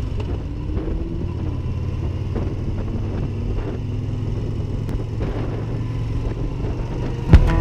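Yamaha Bolt's air-cooled V-twin engine running steadily while the motorcycle cruises along, with a rumbling road and wind noise. Music with sharp plucked strikes cuts in near the end.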